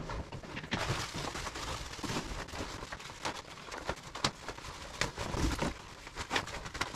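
A new Frog Togs All Sport rain suit's stiff synthetic fabric rustling and crinkling as it is unfolded and pulled on, with many sharp crinkles throughout. New suits like this are loud and stiff before their first wash.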